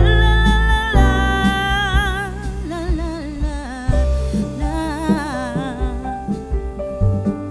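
Background music: a song with a singer holding long notes with vibrato over a bass and accompaniment.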